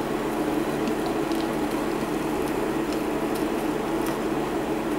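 Just-boiled water pouring in a steady stream from a stainless steel kettle into a metal tea strainer of loose black tea leaves in a glass teapot.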